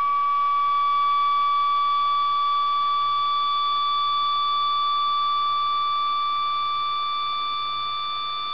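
Tambourine membrane driven by a shaker at one frequency from a signal generator, giving a steady, high, pure-sounding tone with faint overtones. The pitch creeps slightly upward and the level eases a little near the end. The drive sits near one of the membrane's resonant modes, where grains gather on the still nodal lines as a Chladni figure.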